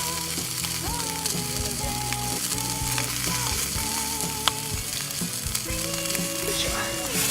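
Food frying in a pan, a steady sizzle with scattered small crackles and pops, under soft background music with held melody notes.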